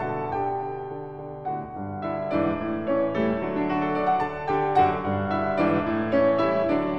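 Background piano music, with notes and chords struck one after another, sparser near the start and busier from about two seconds in.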